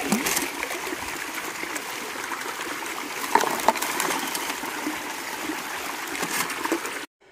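Water rushing through a Keen Mini Max high banker, washing gravel over the grizzly bars and down the sluice matting, with two sharp clicks a little past three seconds in. It cuts off abruptly near the end.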